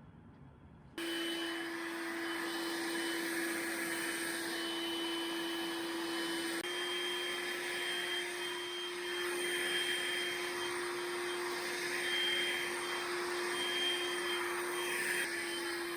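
Vacuum cleaner switched on about a second in, then running steadily with a hiss and a hum, its pitch shifting slightly twice.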